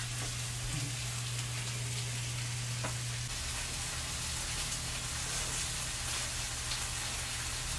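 Pork belly, marinated meat and squid sizzling on a round tabletop grill pan, a steady frying hiss. A steady low hum runs underneath and softens about three seconds in.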